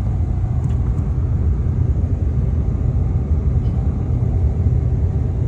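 Steady low rumble of a moving bus, heard from inside the cabin.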